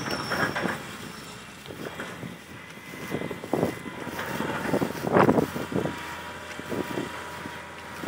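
Tracked hydraulic excavator working its arm and bucket: the engine runs steadily under a faint hydraulic whine, with irregular louder surges and scrapes, the loudest about three and a half and five seconds in.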